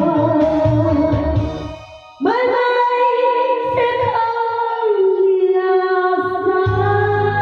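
A song with a backing track. The beat fades out about two seconds in, a long held note follows, and the bass and beat come back near the end.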